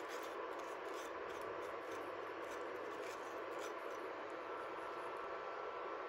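Silicone spatula scraping sugar out of a glass bowl, with small scrapes and ticks of sugar over the first few seconds, over the steady hiss of water simmering in the saucepan.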